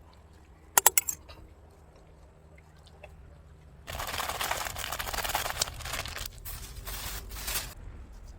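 Handling noise: a quick run of sharp clicks about a second in, then about four seconds of dense rustling and crinkling that stops shortly before the end.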